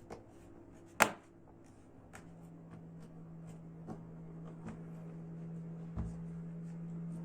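Plastic snap clips of a laptop's bottom cover clicking into place as its edges are pressed down: one sharp click about a second in, then a few faint ticks. A steady low hum runs underneath.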